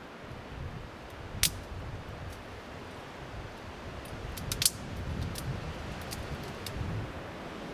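Newly lit wood fire crackling: a loud snap early on, a quick cluster of snaps a little past the middle, and lighter ticks between, over a steady rushing noise.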